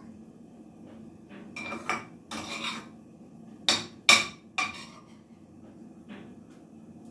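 Metal spoon clinking and scraping against a dish while stuffing is spooned into a baking pan. There are several separate clinks and scrapes, the sharpest two a little past the middle.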